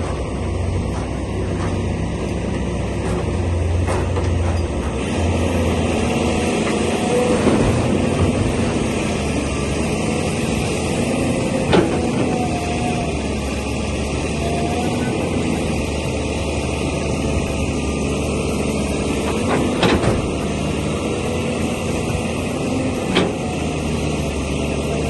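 Heavy diesel machinery running steadily, with three sharp metallic knocks over the engine noise: about halfway through, past two-thirds of the way and near the end.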